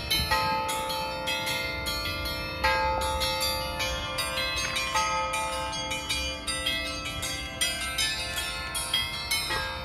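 The Federation Bells, a set of upturned harmonic bells struck by their automated striking system, ringing a quick run of strikes, several a second, each note ringing on and overlapping the next.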